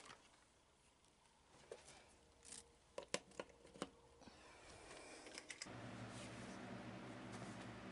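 Quiet scattered clicks and knocks of a plug and cord being handled at a wall socket. About three quarters of the way in, a steady low hum starts and keeps going.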